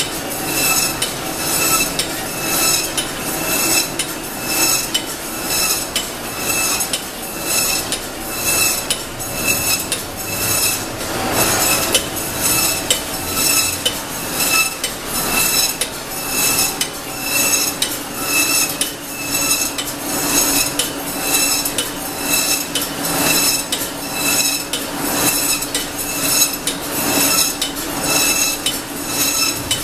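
Automatic poultry cut-up line running: the overhead shackle conveyor and cutting modules clatter metallically in an even rhythm of about two clicks a second over a steady machine hum.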